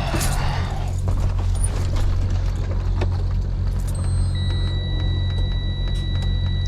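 Steady low hum of an engine running, with a high-pitched steady warning tone that starts about four seconds in and holds, during an attempt to start a Freightliner truck on batteries at about 6 volts.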